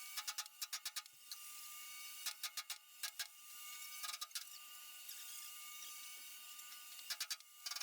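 Faint steady hiss broken by five short runs of rapid clicking or tapping, each well under a second. The clicking comes from metal repair work on a brush hog rotary cutter, played back sped up.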